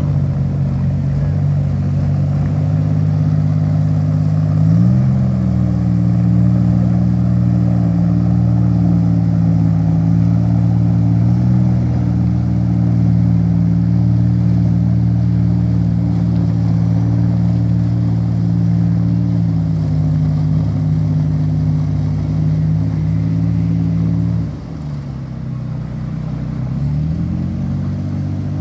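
Engine of a wooden river work boat running loudly and steadily; it speeds up about five seconds in, holds there for most of the time, then drops back and picks up again near the end.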